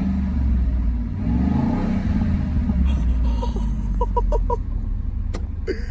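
Ford Lightning pickup's V8 revved in neutral, the pitch climbing and falling back twice over a deep, steady rumble.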